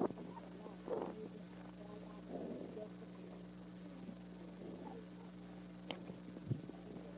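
Steady hum and hiss of an old videotape recording, with faint, indistinct voices and a few soft knocks.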